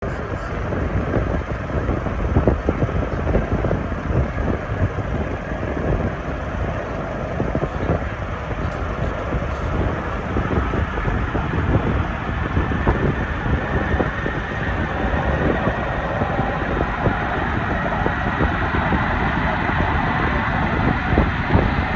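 Antonov An-225 Mriya's six D-18T turbofans at take-off power in the distance: steady jet noise with a whine that grows stronger through the second half, over wind buffeting the microphone.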